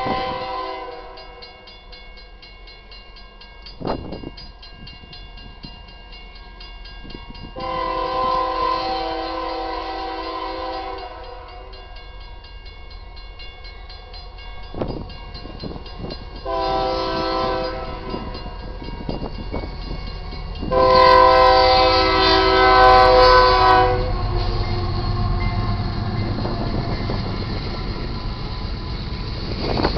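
Air horn of an approaching GE AC44CW diesel-electric freight locomotive sounding the grade-crossing signal: a long blast, a short blast and a final long, loudest blast. After the last blast the rumble of the train grows as it nears the crossing.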